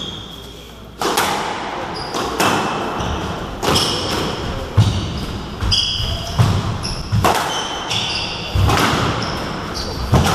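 Squash rally: the ball cracking off rackets and the walls in sharp, echoing hits roughly once a second, with short high squeaks from players' shoes on the wooden floor between them.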